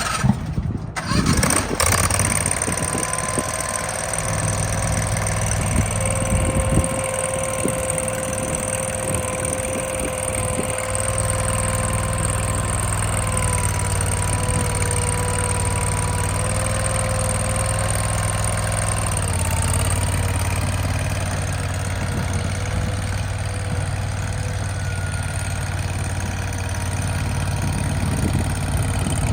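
AGT CRT23 mini skid steer loader's engine starting, then running steadily with a steady whine above the engine note. The engine note changes about two-thirds of the way through.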